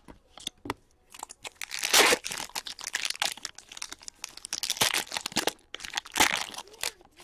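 Foil trading-card pack wrapper crinkling and tearing as hands open it, loudest about two seconds in and again near the end.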